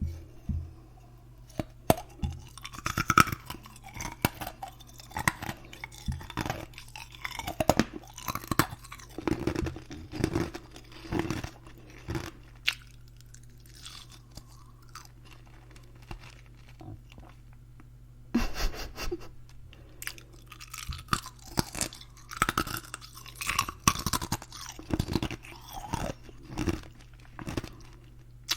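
Ice cubes being bitten and chewed close to the microphone: repeated crisp crunches in bursts, with a pause of several seconds in the middle before the crunching resumes.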